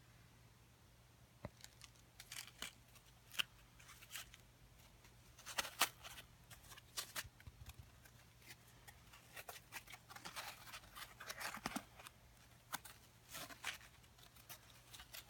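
Watch box and packaging being handled and opened: scattered clicks, taps and rustling, beginning after about a second and a half of quiet.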